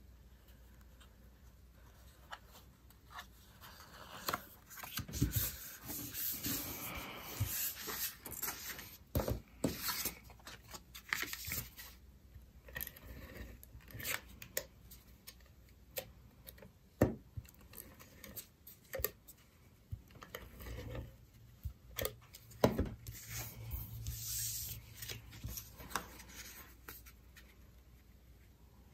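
Cardstock pieces being handled, stuck together and pressed down by hand: paper sliding and rubbing, with scattered sharp taps and clicks. The handling starts a few seconds in and goes quiet near the end.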